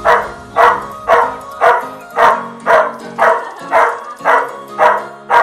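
White Labrador barking excitedly, a steady run of about two loud barks a second, in greeting of its owners back after a long absence.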